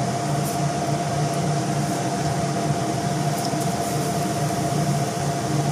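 Potato bajji frying in a pan of hot oil: a steady sizzle, over a constant hum with a steady mid-pitched tone.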